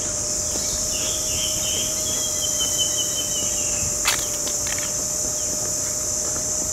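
Steady high-pitched insect chorus, with a high trilling call from about a second in until past the middle and a sharp click about four seconds in.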